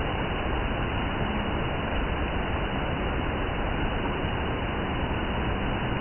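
Waterfall's falling water rushing in a steady, even roar.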